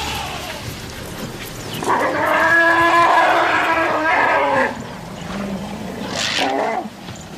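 African elephant trumpeting as a threat toward wild dogs: one long brassy call of about three seconds, then a second, shorter call about six seconds in.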